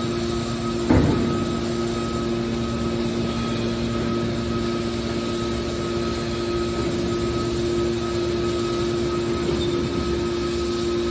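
Hydraulic metal baler running with a steady hum, and one sharp metallic knock about a second in.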